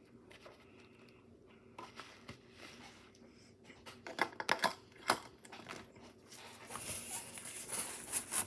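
Tissue wiping and scrubbing the plastic case of a portable cassette player, with a few sharp taps and clicks about four to five seconds in and a steady hissing rub near the end.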